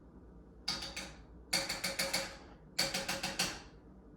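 Stove control clicking in three short runs of rapid clicks with a faint metallic ring, as the burner heat is being set.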